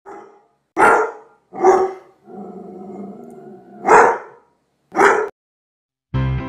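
A dog barking five times in short, separate barks, with one longer, drawn-out lower call between the third and fourth barks. Music comes in near the end.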